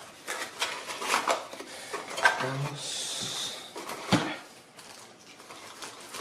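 Hard objects clicking and knocking as the impact wrench, its case and sockets are handled, with a short hissing whir about three seconds in and a sharp knock about a second later.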